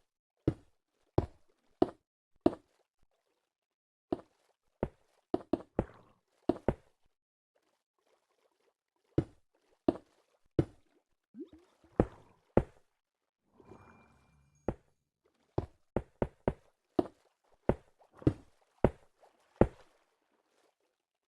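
A series of sharp knocks or taps, irregular, about one or two a second, with a pause of a couple of seconds near the middle. A brief soft rustling comes a little past halfway.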